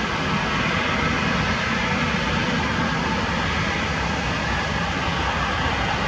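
Distant jet airliner engines: a steady rushing noise with no rise or fall.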